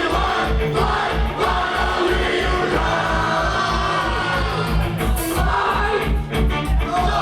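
Punk band playing live with singing: loud band sound over a fast, even kick-drum beat of about four beats a second.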